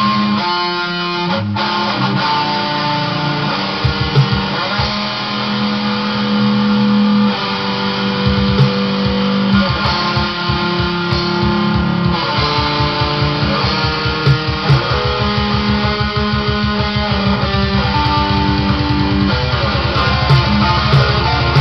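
Electric guitar playing a metal riff: held, changing notes at first, then from about eight seconds in melody notes over fast, evenly repeated low picked notes.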